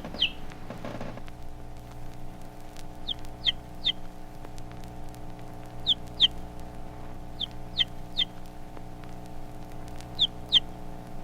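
Baby chick giving distress calls, the cry of a chick that is lost, cold or hungry: short high peeps, each falling in pitch, in groups of two or three every couple of seconds. Under them run a steady low hum and the crackle of a vinyl record.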